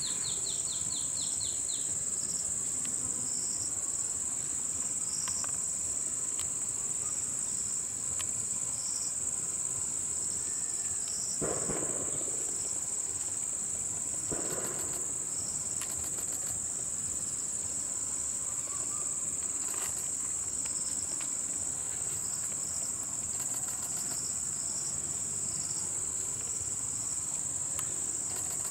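Steady high-pitched drone of an insect chorus, with a second insect chirping in a regular pulse beneath it. A bird gives a short trill right at the start, and around the middle two brief rustling crashes come about three seconds apart.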